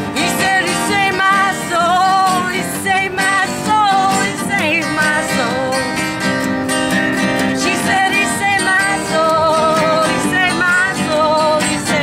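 Live acoustic guitar strummed steadily, with a wavering melody line carried over the chords.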